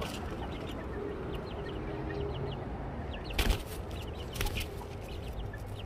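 Chickens clucking and chirping in short, quick calls. There is a loud knock a little past halfway and a smaller one about a second later.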